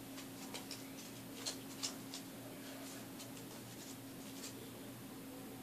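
Faint scratching and rustling of paper being worked by hand at a table, with scattered soft ticks, two a little louder about a second and a half and two seconds in, over a steady low hum.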